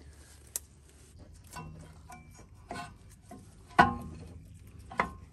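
Metal clinks and clunks as a rebuilt Toyota four-piston front brake caliper is slid over the rotor and seated on its mount. The loudest knock, with a brief ring, comes just under four seconds in, and another clunk about a second later.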